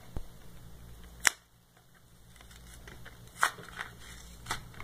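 A cardboard-and-plastic toy box being handled and opened, giving a few sharp plastic clicks and snaps, the loudest about a second in and again past the middle.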